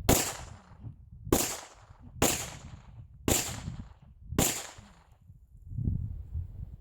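Five rifle shots from an ENZO-TAC 938R fitted with a 2.0 lb X-line trigger, spaced about a second apart, each followed by a short echoing tail.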